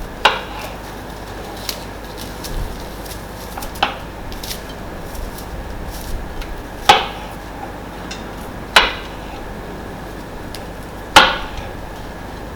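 Spoon knocking against a bowl: five sharp clinks a second or more apart, the last one loudest, with a few faint ticks in between.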